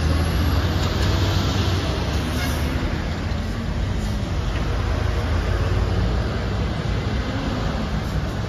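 Steady road traffic on a busy multi-lane city street: a continuous low rumble of trucks, buses and cars.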